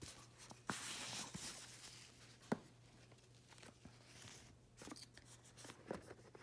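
Soft rustling of a fabric ribbon being slid off a matte cardboard gift box as the box is handled, with a few light taps and one sharper click about two and a half seconds in.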